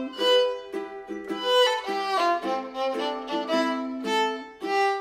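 Background music: a violin playing a light, quick tune of short notes.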